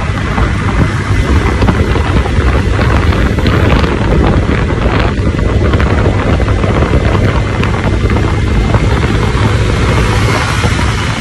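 Steady wind rush buffeting the microphone of a motorcycle riding at speed, with vehicle and road noise underneath.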